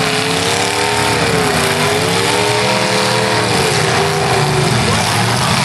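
Full-size demolition derby cars' engines running hard and revving, the pitch swelling up and down several times.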